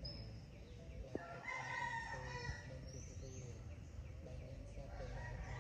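A rooster crowing once, about a second and a half in, with fainter fowl calls around it over a low steady hum.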